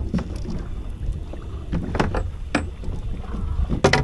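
Small boat at sea: a steady low rumble of wind and water, with a few sharp knocks and clicks on board, the loudest near the end.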